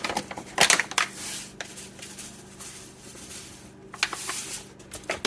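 Eggs being beaten by hand in a bowl: quick clicking strokes of the utensil against the bowl for about the first second, then softer, intermittent rubbing and scraping.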